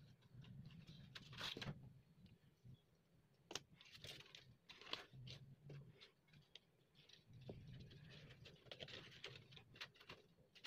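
Faint rustling and crinkling of tinted paper strips and clear plastic sheet being handled, with small scattered clicks.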